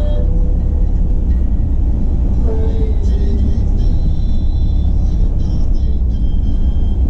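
Steady low rumble of road and engine noise inside a moving car's cabin, with faint music underneath.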